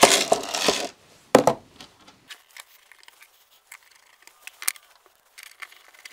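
A brief rustle of handling in the first second, then light scattered clicks and ticks of small screws and a hand screwdriver as a Blum hinge is screwed to a cabinet door, with one sharper tap about halfway through.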